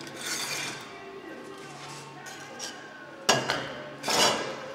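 Wooden wedges being pulled from under a plaster mould and knocked down onto a workbench, with scraping as the mould is shifted: a sharp knock about three seconds in and another heavy one a little after four.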